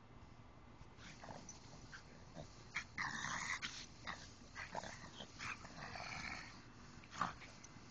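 A French bulldog and a pug growling at each other in play, in irregular short bursts, the loudest about three seconds in, with a short sharp sound near the end.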